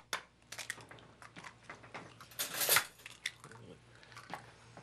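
Eggs being cracked one after another on the rim of a glass measuring cup: a run of sharp taps and shell cracks, with one louder, longer crack about halfway through.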